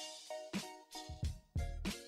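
Background music with a regular beat, about two hits a second, under a melody of short notes.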